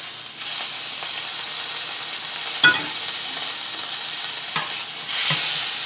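Wagyu steak's fat cap sizzling steadily in hot oil in a pan as the fat is rendered off. A few short sharp clicks, one about three seconds in and two near the end.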